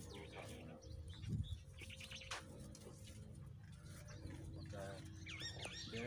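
Small birds chirping in short, scattered calls over a steady low hum, with one brief louder low sound about a second and a half in.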